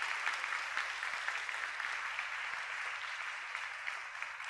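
Audience applauding in welcome, a steady patter of many hands clapping that starts to die down near the end.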